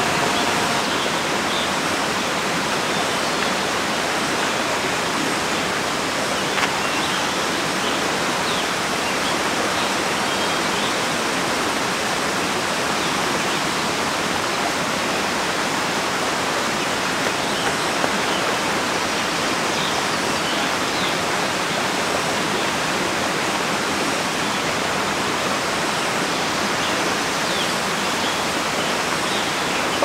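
Small forest stream rushing over rocks in a steady, even wash of water noise.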